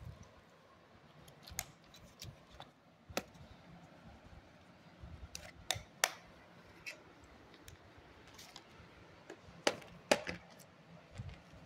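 Scattered sharp clicks and taps of small plastic craft supplies, pots, lids and packets, being handled, with the loudest clicks about six seconds in and again near ten seconds.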